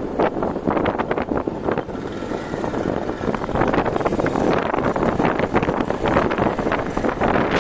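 Wind buffeting the microphone of a moving motorcycle, a loud irregular rushing with gusts, with the bike's engine and road noise underneath.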